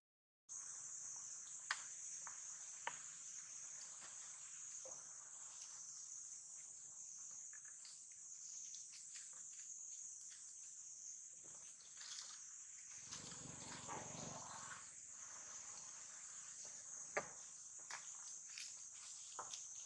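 Steady high-pitched drone of insects, with scattered faint clicks and a short stretch of low rustling about two-thirds of the way through.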